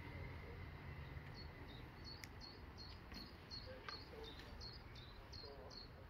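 Faint, high chirps from a small animal, repeating evenly about three times a second from about a second in, over a low steady rumble.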